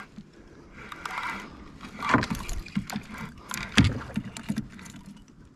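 Irregular knocks and splashy water noise as a hooked fish is played and brought up beside a small fishing kayak, with handling bumps against the boat; the loudest knocks come about two seconds in and again near four seconds.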